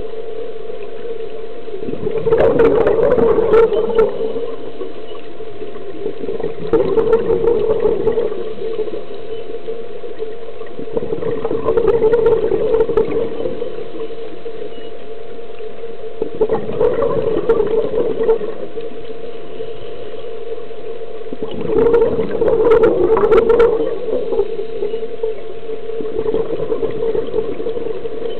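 A scuba diver's exhaled breath bubbling out of the regulator underwater, in six gurgling bursts about every four to five seconds, over a steady low hum.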